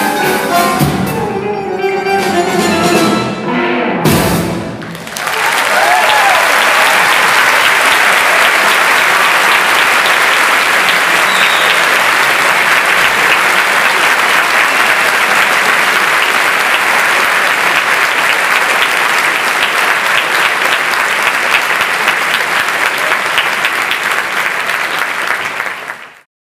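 A tango-jazz quintet of bandoneón, piano, double bass, electric guitar and drums plays the closing bars of a milonga pampeana, ending on a final struck chord about four seconds in. Then the audience applauds steadily, and the applause cuts off abruptly near the end.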